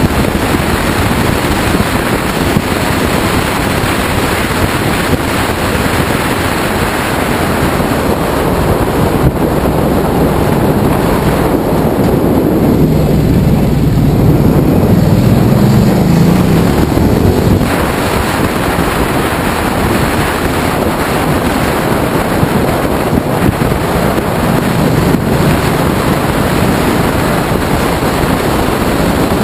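Ducati Multistrada riding on the open road: heavy wind rush on the microphone over the V-twin engine running underneath. About twelve seconds in, the wind eases as the bike slows, and the engine's low note comes through more clearly. The wind rush builds back a few seconds later as the bike speeds up again.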